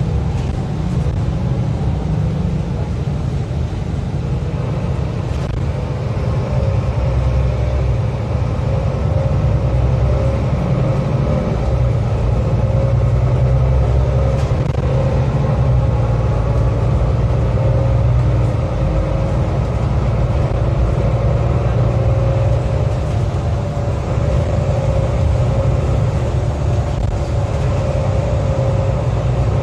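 Inside a moving city shuttle bus: steady low engine and road rumble, with a faint engine whine that rises slightly a few seconds in and then holds.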